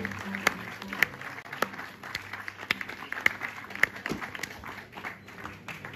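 Theatre audience applauding in a large hall: sharp separate claps stand out over a light patter of clapping.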